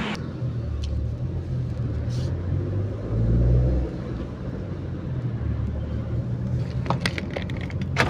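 Steady low rumble of a car driving, heard from inside the cabin: engine and road noise, swelling for about a second around three seconds in, with a few short clicks near the end.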